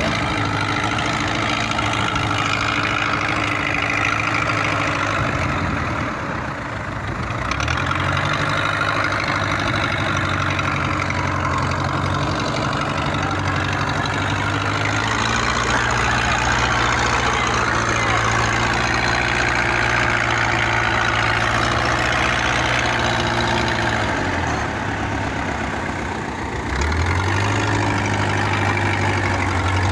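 Wooden fishing boat's inboard engine running steadily, slowing briefly about six seconds in and again near the end, each time picking back up to a higher speed.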